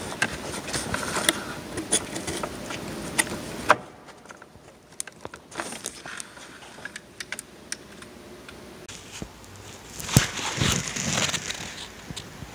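Hands fitting screws and the gasket onto a Mercedes M272 engine's EGR valve: scattered small metallic clicks and taps with rustling handling, busiest in the first four seconds, with a louder rustling spell about ten seconds in.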